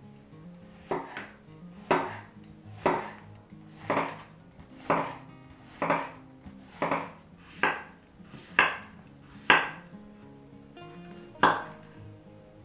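Chef's knife slicing a zucchini into rounds, each cut ending in a sharp knock on a wooden cutting board, about one cut a second, eleven in all with a short pause before the last.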